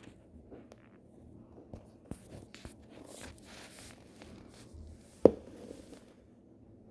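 Faint rustling and scattered soft clicks, with one sharper click about five seconds in.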